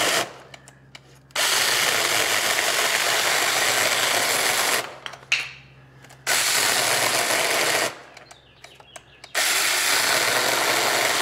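TomyVic 21-volt cordless mini chainsaw cutting into a thick stack of 2x4s. It runs in bursts of one and a half to three seconds, with pauses of about a second and a half between. The load is heavy enough that the saw has been binding in the cut, which the user puts down to a binding clutch.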